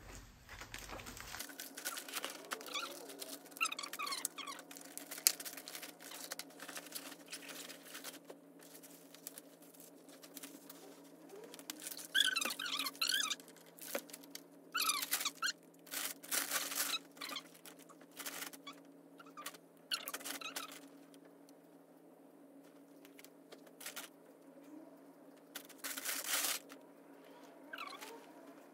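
Clothes and bags being handled, heard as a series of irregular short rustles and crinkles over a steady low hum.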